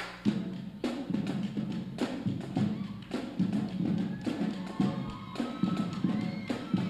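High school drumline playing a percussion-only cadence: dense, quick drum hits with deep bass-drum strokes underneath.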